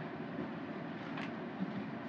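Steady classroom background noise, an even low hiss and hum, with one faint short click a little after a second in.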